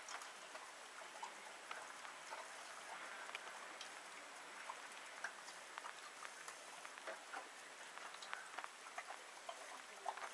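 Faint, irregular small clicks and smacks over a low hiss: a horse's lips and tongue licking and mouthing a remedy from an open hand.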